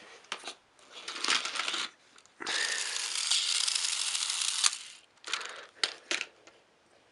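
Battery-powered K'Nex Mario Kart toy kart running along its plastic track with a rattling whirr: a short run about a second in, a steadier run of about two seconds in the middle, then a few clicks and knocks near the end.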